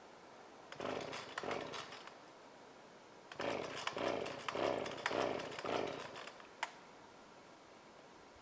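Husqvarna Rancher 455 chainsaw's recoil starter pulled again and again without the engine catching and running, in two bouts of quick rasping pulls about two a second. One lone click follows. The saw is hard to start and will not stay running.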